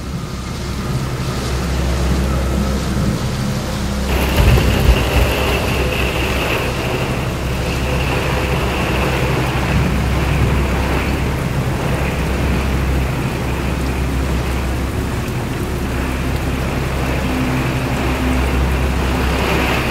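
Heavy rain pouring down in a thunderstorm, with a continuous low rumble of thunder under it. About four seconds in, the rain gets louder and hissier.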